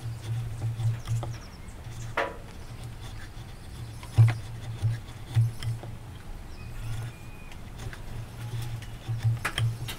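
Hand-pushed chisel paring wood inside a mortise: quiet scraping with a few sharp clicks as chips and fibres split off, about two seconds in, four seconds in and near the end, over a low pulsing hum.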